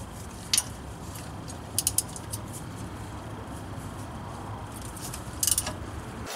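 Ratchet wrench clicking in short bursts: a click about half a second in, a quick run of clicks around two seconds and another near the end, over a steady low rumble. The bolts of a transmission hard-line bracket are being loosened.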